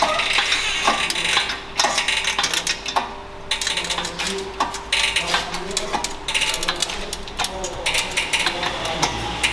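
Collision-repair work: repeated metallic clinks and knocks from the chain and steel as the pushed-back inner front panel of an SUV is pulled forward with a chain, with several short spells of hiss.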